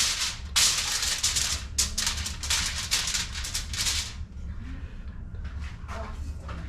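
A sheet of aluminium foil crinkling and rustling as hands smooth it flat, in several loud bursts over the first four seconds, then softer rustles.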